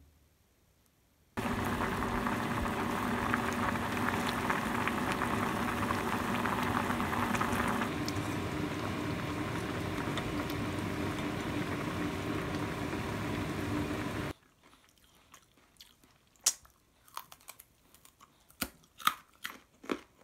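A pot of galbitang broth with glass noodles and green onion boiling hard and being stirred with chopsticks, a loud steady bubbling over a faint hum. It starts suddenly about a second and a half in and cuts off suddenly past the middle. Scattered sharp crunches and clicks follow near the end.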